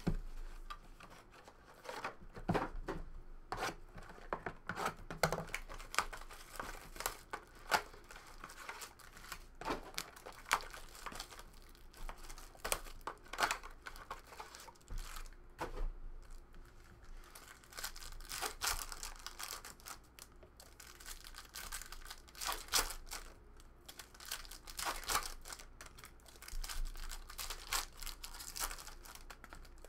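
Hands opening trading card packaging, with irregular ripping of a cardboard box and crinkling of foil card packs being handled and torn.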